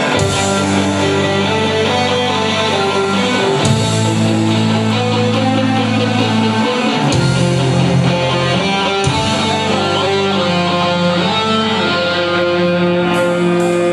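Live rock band playing an instrumental passage: electric guitars lead a melody over sustained bass notes that change every few seconds.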